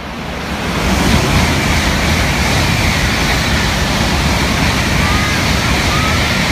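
A Shinkansen train running through the station at speed without stopping. The rush of air and rolling noise builds over the first second, then holds loud and steady as the long train passes close by.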